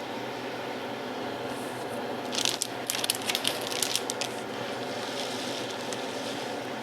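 Steady fan-like hum, with a burst of crinkling, clicking handling noises about two and a half seconds in that lasts about two seconds.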